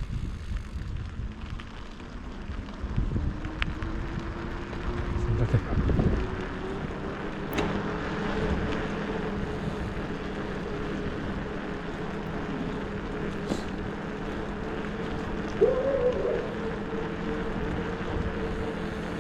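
Wind buffeting a helmet or handlebar action-camera microphone during a bicycle ride, gusting hardest a few seconds in. Under it runs a steady hum that slowly rises in pitch, with a few light clicks.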